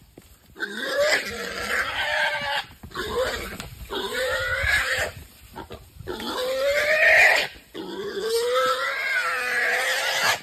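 Wild boar caught in a rope snare, squealing: about four long, harsh squeals of a second or two each, with short breaks between them.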